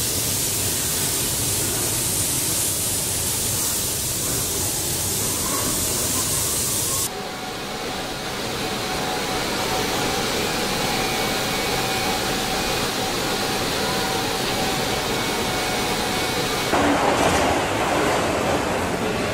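Paint-booth spray robots: a loud, steady hiss of spraying air, brightest for the first seven seconds, then softer with a faint steady hum of tones. About seventeen seconds in it changes to the noisier clatter of assembly-line machinery.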